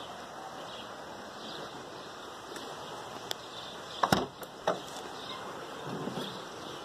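Maserati Quattroporte boot latch releasing with a few sharp clicks a little past halfway, and a softer sound near the end as the lid lifts open, over a steady background hiss.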